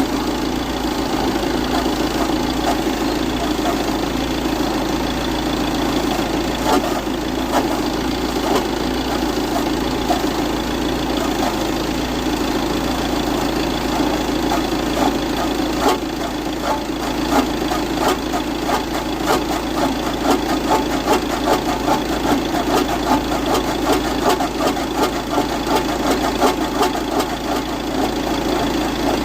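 Audi Q5 engine idling steadily while the steering is turned, with a fast run of short creaking clicks, a few a second, heaviest in the second half. The clicks come from the steering column's joint rubbing on its metal shield.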